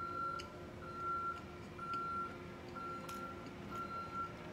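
A vehicle's reversing alarm beeping, a single high-pitched beep about half a second long repeating about once a second, with a few faint light clicks of a fork on a plate.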